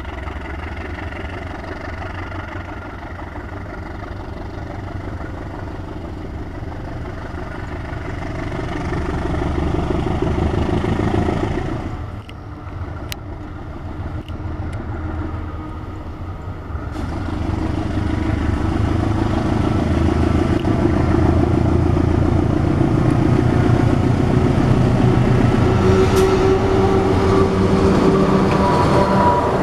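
BB 203 diesel-electric locomotive hauling a passenger train, its engine running under power with a steady low drone as it approaches. The sound dips briefly about twelve seconds in, then grows louder as the locomotive passes close by.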